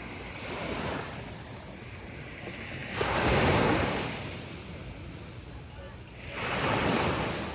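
Sea waves breaking on a beach: a steady wash of surf with a large wave crashing suddenly about three seconds in and another near the end.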